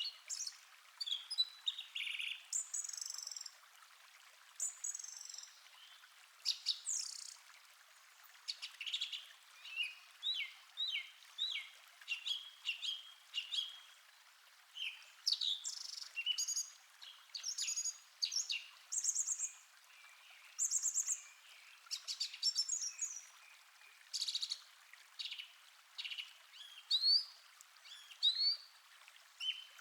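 Forest songbirds chirping and whistling, a busy run of short calls and quick trills one after another, over a faint steady hiss of a calm stream.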